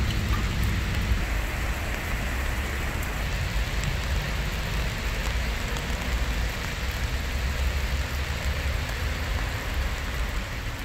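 Steady rain falling onto puddled ground, with a low rumble underneath.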